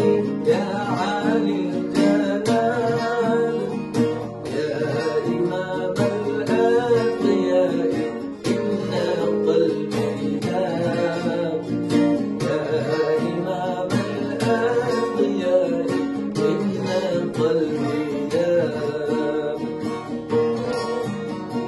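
Bağlama (Turkish long-necked saz) and acoustic guitar playing an instrumental passage together: quick plucked lute notes over strummed guitar chords.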